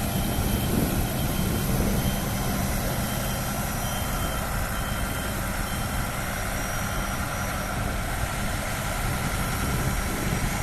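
A 6x6 off-road vehicle's engine running steadily, with a faint high tone coming and going.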